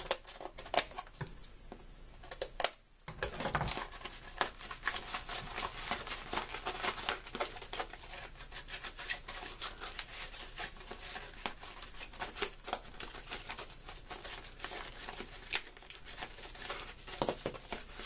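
Cardboard and paper scraps rustling and knocking as they are handled and gathered off a work surface: a dense run of small clicks, scrapes and crinkles.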